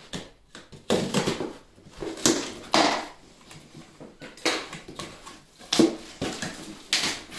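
Cardboard shipping box being cut and torn open with scissors: short, irregular bursts of cardboard scraping, crinkling and tape ripping.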